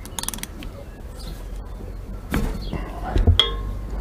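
Ratchet wrench clicking in a quick run on a motorcycle engine's oil drain plug as it is worked loose, then scattered knocks and a short metallic clink with a ringing tone about three seconds in.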